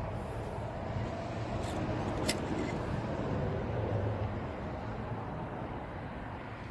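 Chevrolet 5.3-litre V8 idling steadily, an engine with a misfire and a failed lifter. Two brief clicks about two seconds in.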